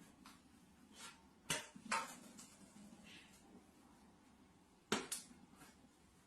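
A few sharp knocks in a quiet room, two close together near the middle and one more near the end.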